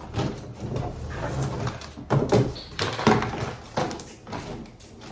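Plastic parts of a Lasko standing fan being handled and fitted together: a run of knocks, clacks and rattles, loudest about two and three seconds in.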